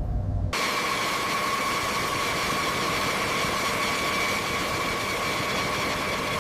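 Jet engines of a B-52 bomber running steadily: a constant rushing hiss with a steady high whine, starting abruptly about half a second in after a low rumble.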